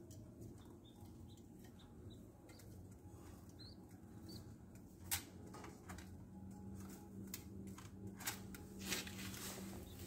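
Faint rustling of a pigeon's wings and body as it shifts and settles down over its chicks in a clay nest bowl, with a few sharp taps about halfway and near the end, over a low steady hum.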